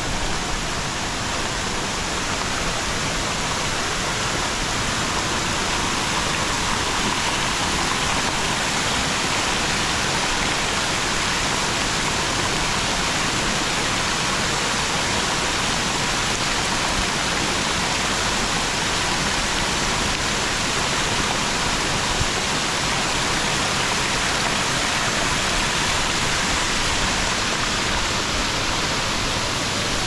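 Steady, even rush of water from a tall, narrow waterfall plunging down a rock face, a continuous hiss with no break or change.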